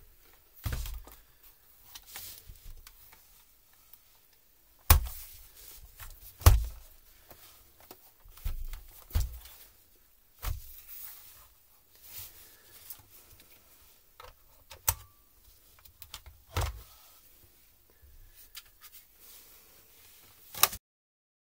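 Plastic laptop case being handled and set down on a work surface: scattered knocks and clunks with light rustling between them. The sound cuts off suddenly near the end.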